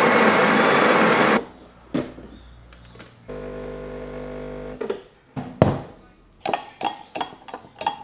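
Breville espresso machine with built-in burr grinder: the grinder runs for about a second and a half at the start, grinding coffee beans into the portafilter. About three seconds in, the pump hums steadily for about a second and a half as the shot is pulled, followed by a series of sharp clinks and taps of a spoon in a glass.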